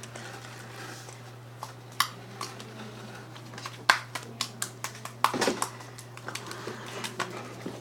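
Homemade white-glue slime being kneaded and stretched by hand, giving off irregular sharp clicks and small wet pops, most of them bunched in the second half.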